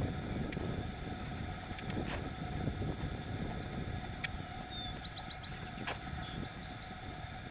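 Low, steady wind rumble on the microphone, with a few faint high bird chirps scattered through the middle and a handful of light clicks.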